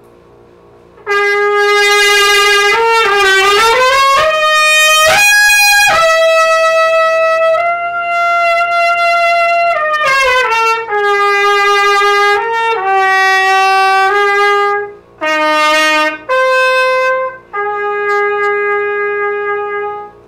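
Solo trumpet played unaccompanied and cold, the player's first notes of the session. It comes in about a second in with a quick rising run, then long held notes that step downward, a short break, and a final long held note.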